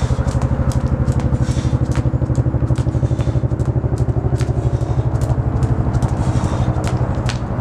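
An engine running steadily with a fast, even pulse, the loudest sound throughout, that cuts off suddenly at the very end. Over it, a jump rope clicks against the pavement about two or three times a second.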